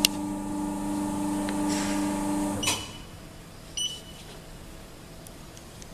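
Automatic guillotine paper cutter's motor humming steadily, then stopping with a click and a short beep about two and a half seconds in. About a second later a control-panel key press gives one short high beep.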